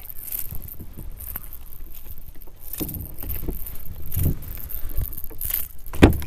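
Fishing tackle and handling noise as a small bass is reeled in on a baitcasting rod and lifted aboard an inflatable kayak: scattered small clicks and rustles over a low rumble, with a sharp knock about six seconds in.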